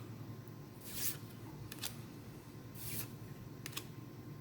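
Trading cards from a Dragon Ball Super booster pack being slid off one another one at a time: two soft swishes about two seconds apart, with light card clicks between them.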